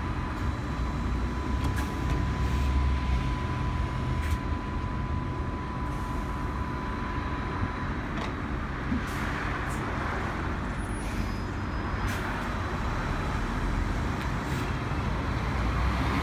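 Electric articulated bus at a flash-charging stop, then pulling away, among street traffic, with a thin steady high tone over the first half. Another city bus passes close near the end, and the sound gets louder.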